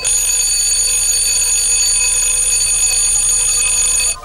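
Electric doorbell ringing continuously: its springy metal clapper is bounced back and forth against the bell by an electromagnet being switched on and off very quickly. The ring is loud and steady and cuts off suddenly just before the end.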